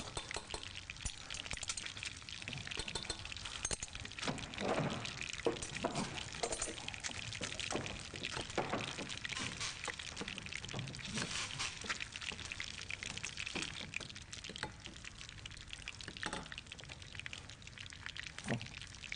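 Kitchen work at a counter: stirring and scraping in a bowl, with small clicks and a few soft knocks of utensils and dishes.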